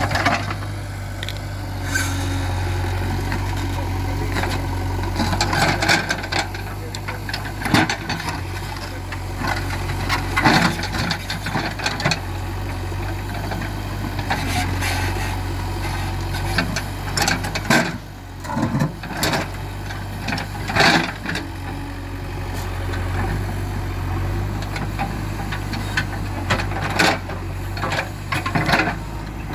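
JCB 3DX backhoe loader's diesel engine running steadily, with irregular knocks and clatters from the machine working over it.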